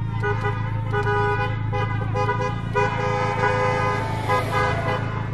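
Several car horns honking in overlapping blasts that start and stop, over the steady low hum of a car heard from inside its cabin.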